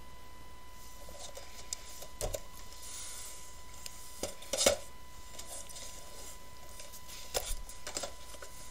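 Cardboard Funko Pop boxes with plastic windows being handled and set down: a few light knocks and rustles, the loudest about four and a half seconds in, over a faint steady high tone.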